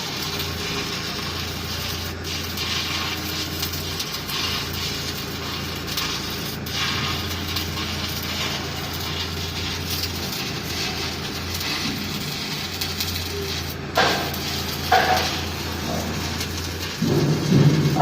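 CO2 MIG welding arc crackling steadily over a low hum. Two sharp knocks come about two-thirds of the way through.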